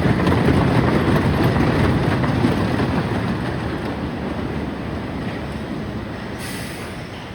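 Wooden roller coaster train rumbling and clattering along its track, growing gradually quieter as it runs.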